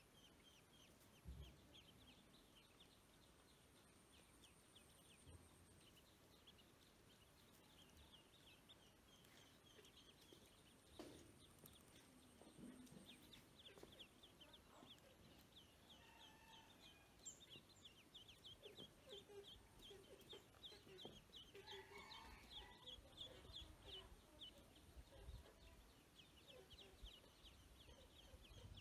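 Ducklings peeping faintly: a quick run of short, high, falling peeps, sparse at first and much busier over the second half.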